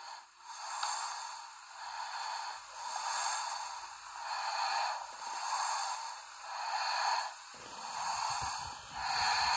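A man's breathing close to the microphone: a slow, even run of breaths, each swelling and fading about every second and a half. Near the end, low bumps and rustling join in as he shifts position.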